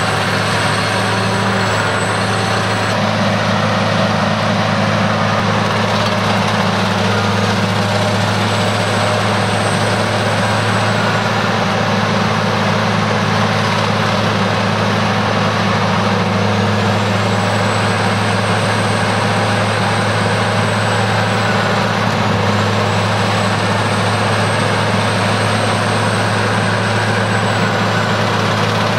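Stump grinder running under load, its engine droning steadily while the toothed cutting wheel grinds into a tree stump, with a high whine that sags and recovers several times.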